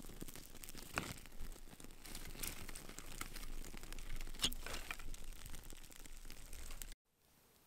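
Birch-bark kindling fire burning and crackling, with sharp pops about a second in and again about four and a half seconds in. The crackle cuts off abruptly near the end.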